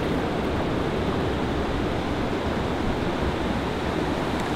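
Steady rush of a small river running fast over shallow gravel riffles and a low cascade.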